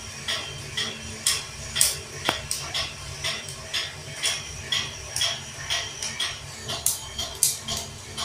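Homemade stainless-steel drum coffee roaster with dark-roasting beans inside, giving sharp irregular clicks and clinks a few times a second over a low steady hum.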